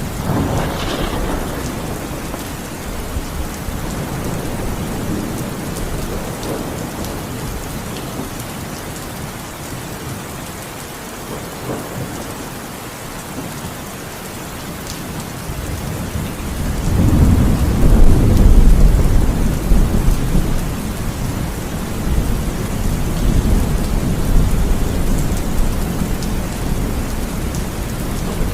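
Steady heavy rain with thunder. A long low rumble of thunder swells up about two-thirds of the way through and is the loudest sound, with a smaller rumble at the start.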